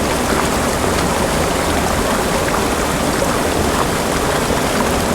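Small mountain creek flowing, a steady loud rush of water.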